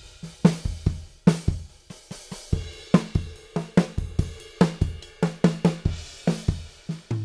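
Sampled rock drum kit playing a steady groove: Ludwig Vistalite kick drum, Tama Metalworks snare and Paiste Masters Dark hi-hats, with a medium ride cymbal.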